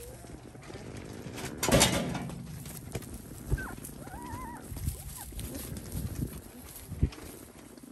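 Anatolian Shepherd puppies, about twelve days old, in straw: one gives short high whimpering squeaks, bending up and down, a little past the middle. Soft knocks and shuffling come and go throughout. The loudest moment is a brief rushing burst of noise about two seconds in.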